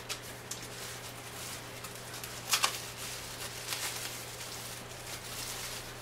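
Clear plastic bag crinkling and rustling as it is handled and opened, in short irregular crackles with a louder crackle about two and a half seconds in.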